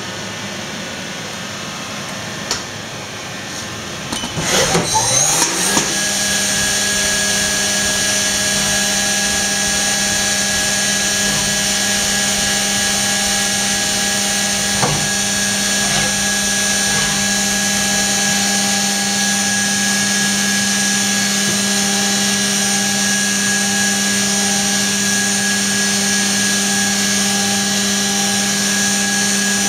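Haas VF-2SS vertical machining center's spindle spinning up with a rising whine about four seconds in, then running steadily at speed with a steady high whine over the machine's constant hum.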